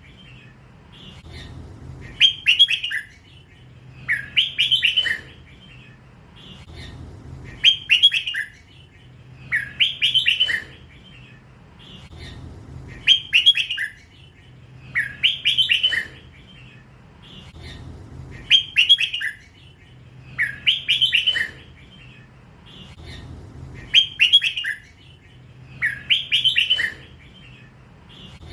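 A young hybrid red-whiskered bulbul, still in its first plumage, singing the same short phrase over and over, about once every two to three seconds.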